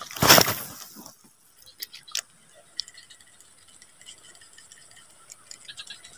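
A short, loud rush of noise at the start, then the light ticking of a fishing reel being wound in as a lure is retrieved for snakehead, with two sharp clicks along the way.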